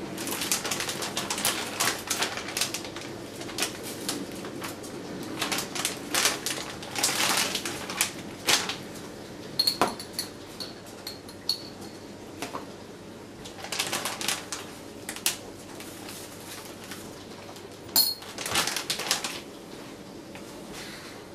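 Clear plastic sous vide bags crinkling and rustling in clusters as hands load pork steaks, butter and dried thyme into them, with a couple of light clinks of a small glass spice jar.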